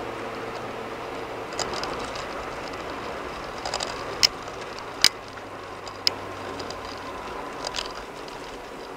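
Steady tyre and road noise heard inside a car cruising on a concrete-paved highway, with a few sharp clicks near the middle.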